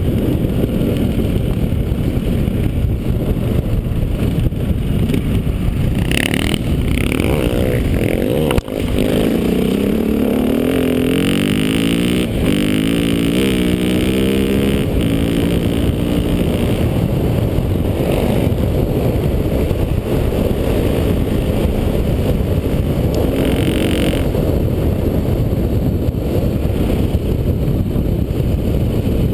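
Dirt bike engine running on a gravel road under heavy wind noise on the microphone. About nine seconds in there is a sharp knock, and then the engine pitch climbs in steps as the bike accelerates through the gears.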